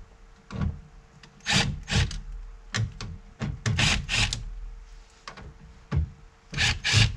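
Driver with a 1/4-inch bit working on the mounting screws of a factory speaker in a truck's rear door: about a dozen short, irregular scraping and rubbing sounds of tool and speaker against the door's inner panel.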